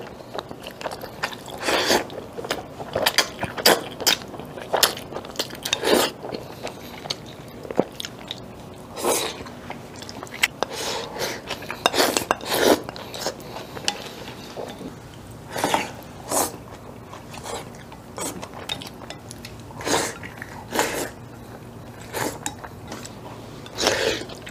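Close-miked eating: mouthfuls of wide biangbiang noodles and saucy meat being slurped and chewed, as short, sharp, irregular slurps and smacks about once or twice a second.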